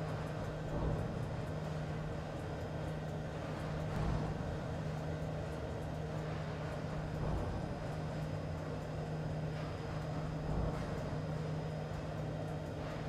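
Steady industrial machinery drone: a constant low hum over a rumbling undertone, with a few soft low thumps.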